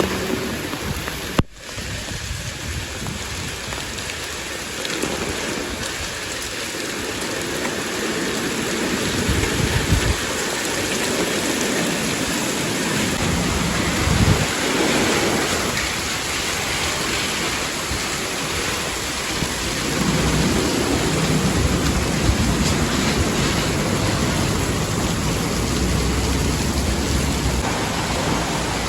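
Steady, heavy downpour of rain: a dense, even hiss with a few low thumps about ten seconds in and again four seconds later. The sound cuts out for an instant about a second in.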